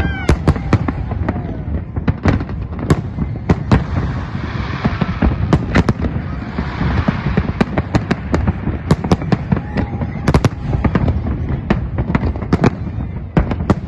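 Fireworks display: a rapid, irregular barrage of sharp bangs over a continuous low rumble, with a stretch of crackling in the middle.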